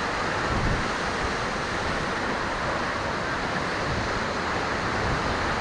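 Waterfall and rocky stream: a steady, even rush of falling and flowing water.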